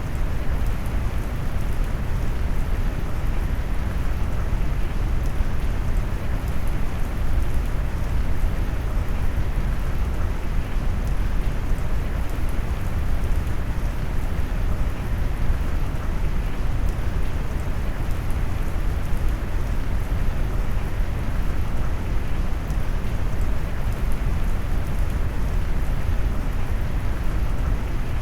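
Rain blended with brown noise: a steady, deep hiss weighted to the low end, with the patter of raindrops faint above it and no change throughout.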